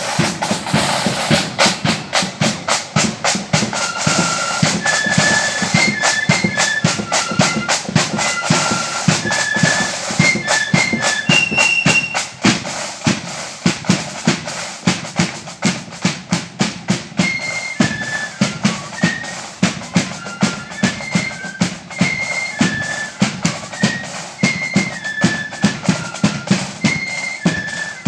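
Marching flute band playing a tune in step: a high flute melody over snare and bass drums beating a steady, rapid march rhythm.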